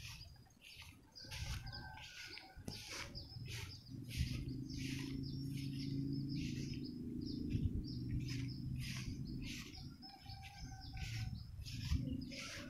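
Short high chirps repeating about twice a second from a small calling animal, with a thin steady high tone behind them. A low hum underneath grows stronger in the middle.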